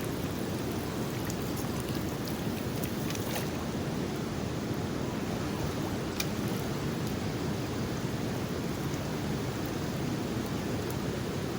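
Swollen floodwater river rushing past in a steady, even roar of current, with a few faint clicks now and then.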